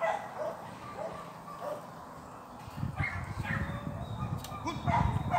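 Dog yips and barks, several short ones in the first two seconds and more near the end, over a low rumble that starts about three seconds in.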